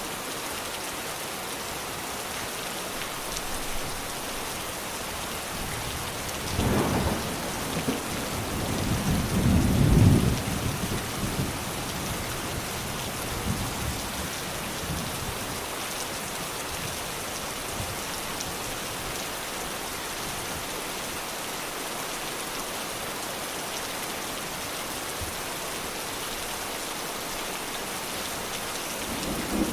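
Steady rain falling, with thunder rumbling low twice, about seven seconds in and again around ten seconds in, the second rumble the louder.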